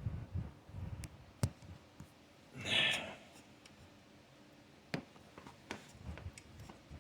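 A few sharp, isolated clicks of vise grips (locking pliers) being released from a broken exhaust stud and handled, with a short breathy exhale about three seconds in.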